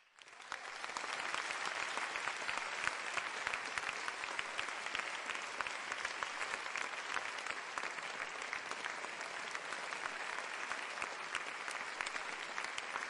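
Applause from a crowd: many hands clapping in a steady dense patter that fades in at the start.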